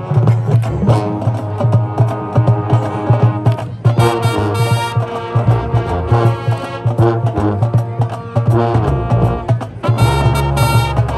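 High school marching band playing: brass over drumline percussion, with loud full-band brass swells about four seconds in and again near the end.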